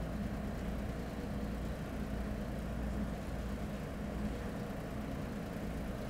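Steady low hum of a large hall's room tone.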